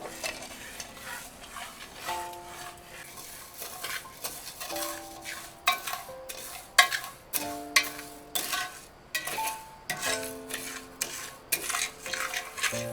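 A kitchen utensil stirring and scraping in cookware, with sharp clicks and knocks that come thicker in the second half, over soft background music with held melodic notes.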